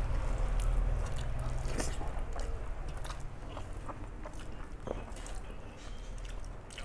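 Close-miked chewing and wet mouth sounds of someone eating rice and curry, with soft squishing and small clicks now and then.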